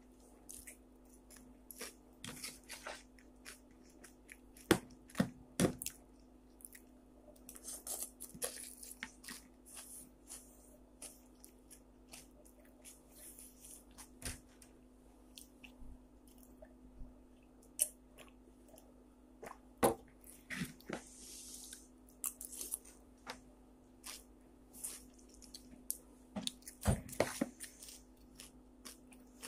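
Scattered small clicks, taps and crackles, a few of them louder knocks, over a steady low hum.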